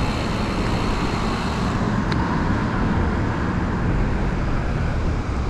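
Steady rushing wind and road noise picked up while riding a road bike along a road with traffic.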